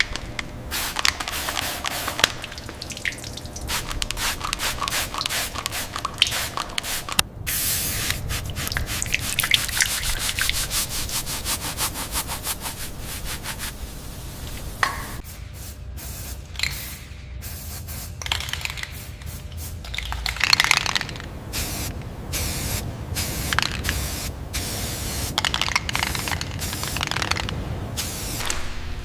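Hissing spray in many short, irregular bursts, mixed with scraping.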